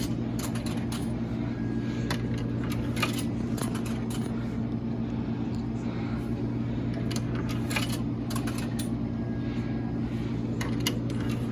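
Quarters dropped one by one into a soda vending machine's coin slot, a series of separate sharp clicks over a steady low hum.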